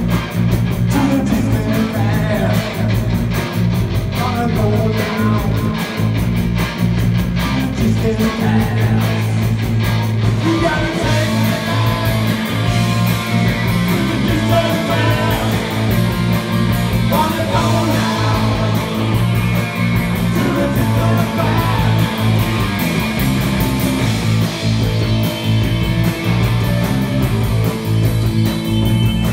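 A live rock band playing: drums, bass and electric guitar with a sung vocal. The busy cymbal beat eases off about ten seconds in.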